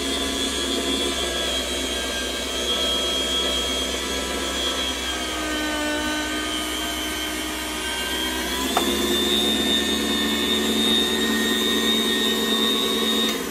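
Electric meat slicer running, its motor giving a steady hum with a high whine as the spinning blade cuts a ribeye into thin strips. The pitch dips for a couple of seconds about halfway through, and there is a single sharp click a little later. The motor is switched off at the very end and winds down.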